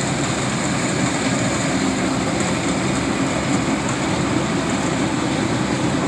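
Rice combine harvester running steadily, an even engine drone with no let-up.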